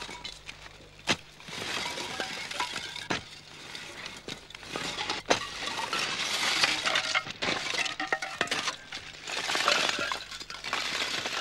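Lumps of freshly burnt charcoal clinking and crackling as a smoking charcoal kiln is dug open, with a steady scraping rustle through it. Sharp clicks stand out, and the rustle swells and fades in waves.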